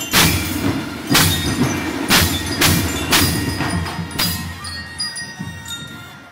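Marching band playing with crash cymbals struck about once a second over a drum beat, with bell lyres ringing. The cymbal strikes stop about four and a half seconds in, leaving the bell tones ringing as the music dies down.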